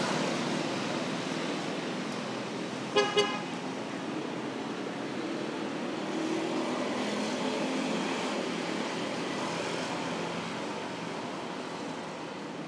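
A vehicle horn toots twice in quick succession about three seconds in: two short, identical beeps. Steady background road noise runs underneath.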